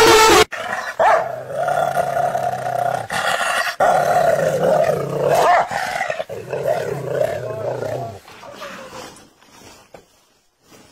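Dog growling in long, continuous stretches with brief breaks, fading out after about eight seconds.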